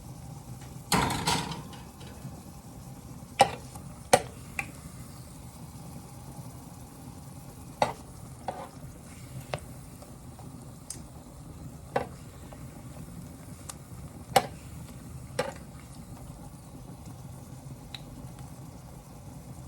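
Cooking utensils knocking and clinking against pots and pans: a short scraping rustle about a second in, then a dozen or so sharp separate taps spread out, over a steady low hum.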